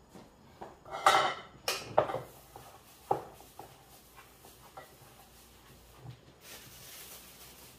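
Dishes and kitchen containers being handled and set down: a cluster of sharp clatters about a second in, another knock at two seconds and one near three, then a few lighter taps.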